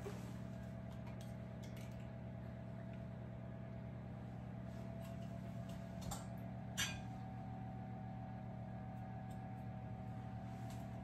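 Steady low appliance hum, with two short clicks about six and seven seconds in, the second sharper, from a cookie scoop working stiff chilled dough in a glass mixing bowl.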